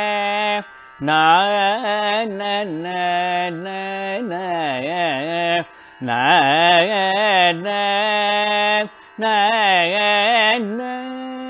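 Carnatic music: a single melodic line ornamented with wide, wavering glides, in phrases broken by three short pauses, settling near the end on a long steady held note.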